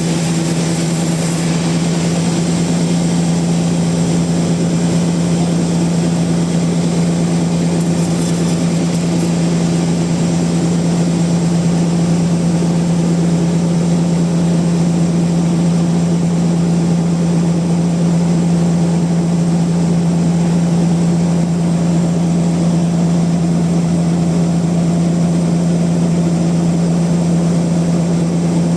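Bandsaw mill running steadily, a strong even hum that holds one pitch throughout.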